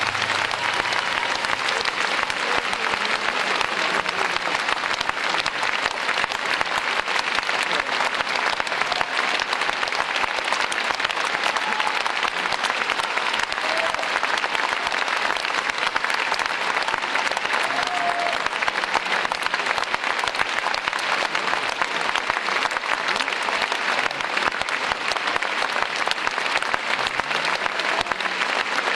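Audience applauding steadily without a break, an ovation after the music has ended.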